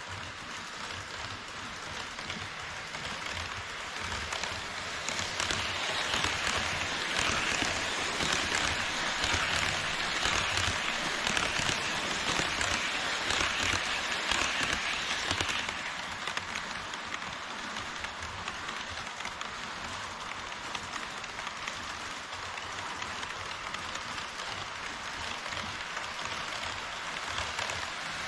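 HO scale model trains, an E5 series Shinkansen and an EH200-hauled freight train, running on KATO Unitrack viaduct track, their wheels giving a steady rattling hiss. It grows louder from about five seconds in while the two trains pass each other close by, then eases somewhat.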